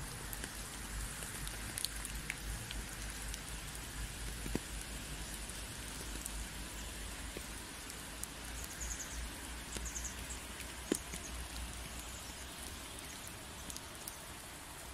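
Water drops falling on wet leaves and a path in woodland: a steady hiss with many scattered sharp ticks of individual drops, over a low rumble.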